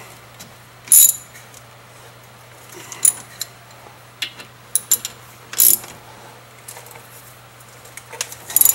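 Hand tools working on a car's front brake caliper bolts: a string of separate metallic clicks and clanks, with a cluster near the end, as the brake assembly is tightened back up. A steady low hum runs underneath.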